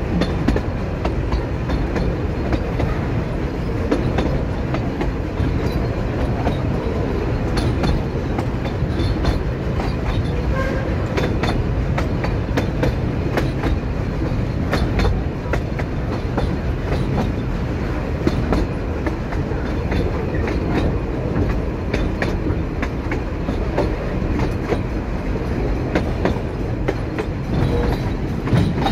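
Puffing Billy's narrow-gauge carriages rolling along the track: a steady rumble and rattle, with the wheels clacking irregularly over the rail joints.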